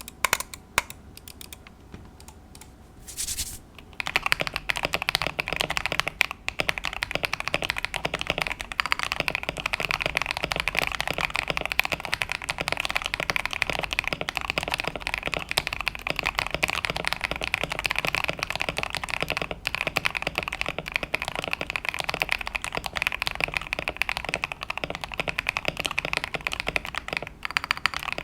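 Mechanical keyboard fitted with Epomaker Dawn Pink switches being typed on. It starts with a few separate keystrokes, then about four seconds in turns to fast, continuous typing.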